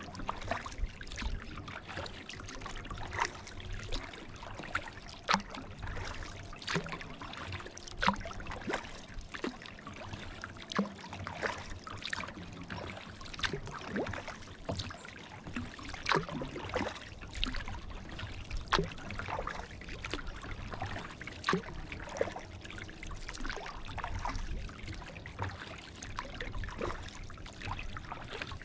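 Kayak paddle strokes in calm water: the blades dipping and splashing, with water trickling off them, in sharp little splashes every second or two.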